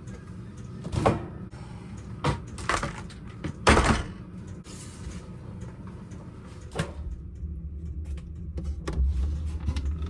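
A few scattered knocks and bumps, the loudest about four seconds in, like a door or cabinet being handled in a small room, over a low steady hum that grows louder in the second half.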